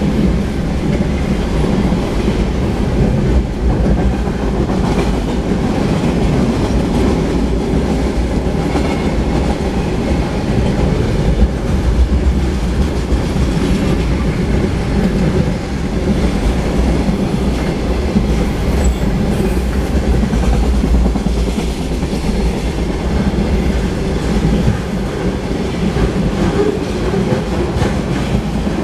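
Double-stack intermodal freight cars rolling steadily past on the main track, a loud, continuous low rumble of steel wheels on rail.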